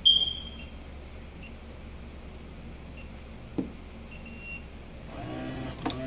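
Electronic keypad deadbolt beeping as its code is entered: one longer beep, then several short ones. About five seconds in, its small motor runs briefly, drawing the bolt to unlock the door.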